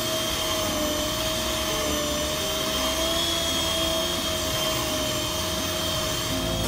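Electric hand mixer running steadily with a constant whine, its twin beaters whipping marshmallow mixture that has reached a thick, fluffy stage.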